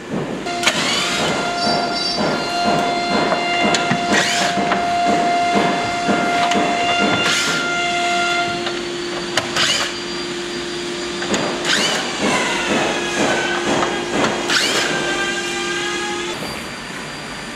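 Background electronic music: a held synth note that drops an octave about halfway through, over a steady beat, with several sweeping falling glides.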